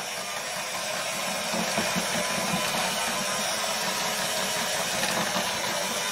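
Electric hand mixer running steadily, its twin beaters whisking Yorkshire pudding batter of flour, eggs, milk and water in a bowl.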